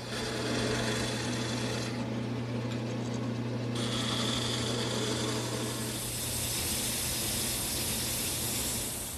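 Wood lathe running with a steady motor hum while a skew chisel cuts a V-groove into the spinning wooden mallet head, giving a continuous scraping, hissing cut. The cutting noise shifts about two seconds in and again near four seconds in, and the sound fades out at the very end.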